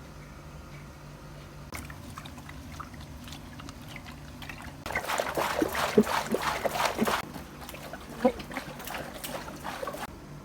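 Water trickling and sloshing, with a louder stretch of splashing and knocks from about five to seven seconds in.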